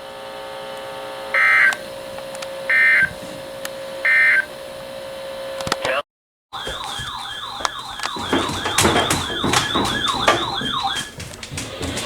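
Three short bursts of EAS digital data tones, about a second apart: the end-of-message signal closing a NOAA Weather Radio warning, heard over a steady hum. After a sudden cut, a warbling electronic siren-like alarm tone with wavering pitch, typical of a weather alert receiver going off, fades out near the end.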